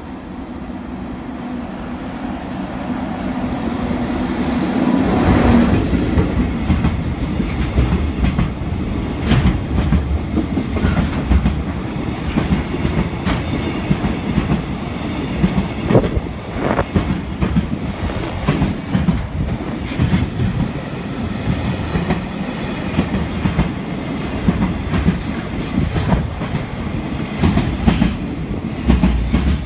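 A JR freight train passing: it grows louder over the first five seconds, then a long run of wagons goes by with wheels clacking over rail joints in a repeating rhythm.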